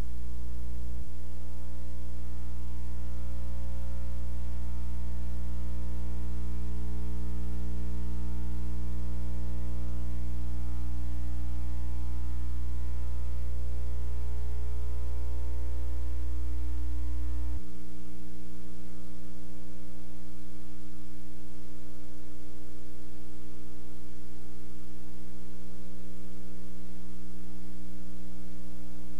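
Steady electrical mains hum with a stack of evenly spaced overtones. About seventeen seconds in, its deep lower part drops away sharply and a thinner hum carries on.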